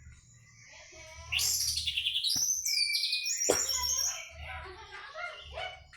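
Orange-headed thrush (anis merah) singing in the 'teler' style: a loud run of sweeping, gliding whistled phrases from about a second in, then softer, quicker varied phrases, over a faint low hum.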